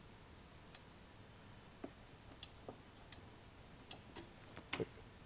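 Faint, irregular small clicks from a kart's hydraulic-handbrake micro switch and its thin metal arm being pressed and worked by hand, about nine over a few seconds, the loudest a close pair near the end. The clicks are the switch actuating as its arm is tweaked to trip reliably.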